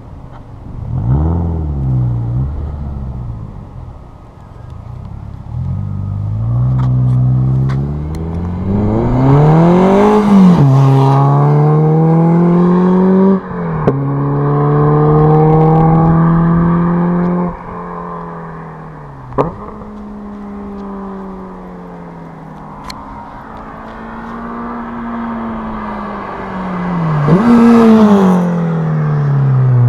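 Renault Clio RS1's four-cylinder engine with a Group N decat exhaust, pulling hard up through the revs with an upshift about 13 seconds in, then lifting off near 17 seconds with a sharp exhaust crack. The car passes close by twice, its pitch dropping as it goes past, once about a second in and once near the end.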